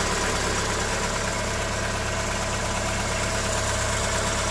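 Chevrolet Onix 1.4 four-cylinder engine idling steadily shortly after its first cold start of the day. There is no knock from the camshaft or valvetrain, so the knock reported on first start is not present.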